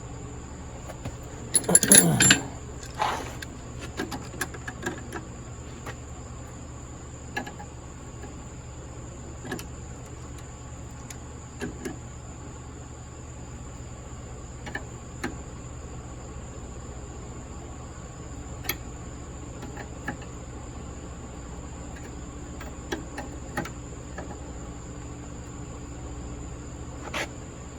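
Hand tools and small metal parts being handled at a workbench: scattered clicks and clinks, with a louder clatter about two seconds in. A steady high-pitched whine runs underneath.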